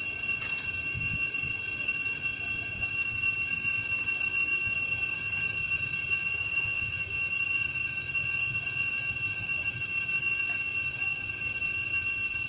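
Steady insect chorus in the trees: a high-pitched whine of several unchanging tones, over a faint low rumble.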